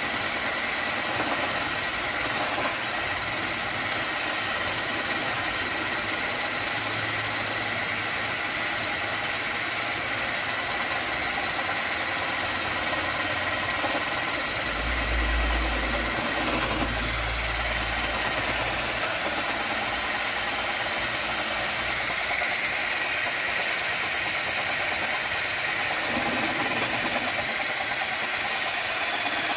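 Tramontina 10.8 V cordless drill/driver running steadily with a 20 mm spade bit boring into a wooden beam, a steady high motor whine over the scraping of the bit in the wood. A brief low rumble comes about halfway through.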